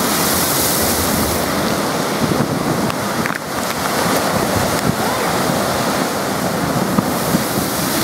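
Wind-driven lake waves crashing against a concrete seawall and washing over the promenade: a steady, heavy rush of surf, with a big wave bursting against the wall near the end.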